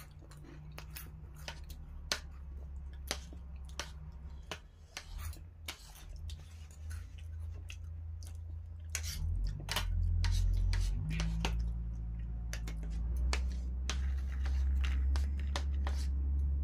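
Eating at a table: repeated short clicks of spoons and fingers on steel plates and bowls, with chewing, over a steady low rumble that grows louder about nine seconds in.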